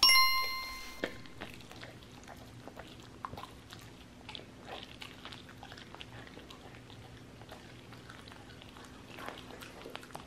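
A bright ringing chime sounds for about a second at the start. Then a husky chews and licks a piece of raw turkey at a plate: quieter, irregular wet clicks and smacks.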